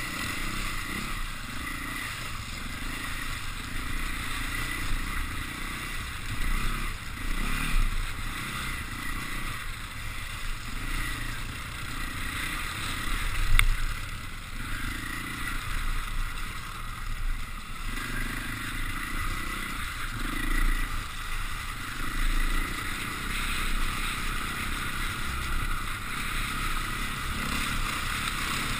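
KTM dirt bike's engine running as it is ridden along a muddy, waterlogged track, the revs rising and falling with the throttle, with the tyres splashing through mud and puddles.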